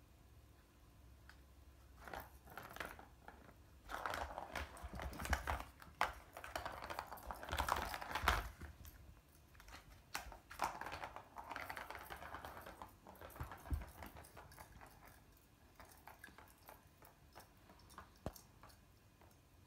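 Ball rolling and rattling around the plastic track of a Catit Senses Speed Circuit cat toy as a kitten bats at it: irregular clattering with sharp clicks, starting about two seconds in, busiest in the first half and dying down toward the end.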